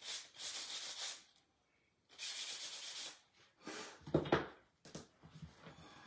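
A small painted wooden block hand-sanded with sandpaper: several separate rasping strokes, each about a second long, with a louder knock about four seconds in.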